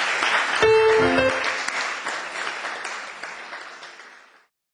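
Audience applauding, swelling about a second in and then fading away until it cuts off near the end, with a brief burst of music of a few notes early in the applause.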